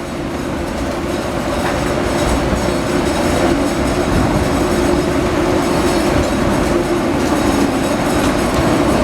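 Water-powered gristmill machinery running, its wooden-spoked gearing turning with a steady rumbling clatter while corn feeds down the chutes, building slightly over the first couple of seconds.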